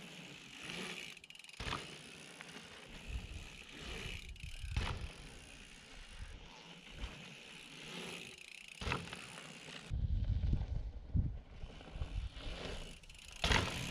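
Mountain bike being ridden over a dirt trail: tyre noise with rattles and sharp knocks from the bike over bumps, and a few low rumbling gusts.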